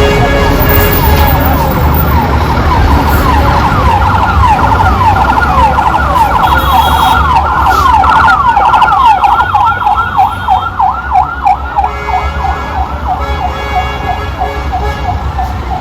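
A vehicle siren in fast yelp mode, several up-and-down sweeps a second, strongest around the middle and easing off over the last few seconds, over a steady low rumble of road traffic.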